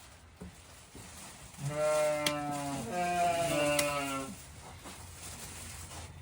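A sheep bleating: two long, low baas one right after the other, starting about a second and a half in.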